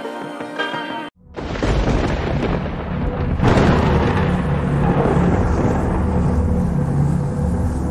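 A song ends abruptly about a second in. Then comes a logo-sting sound effect of thunder and electric crackling: a deep rumble with a sharper, louder hit about three and a half seconds in, then a steady rumble.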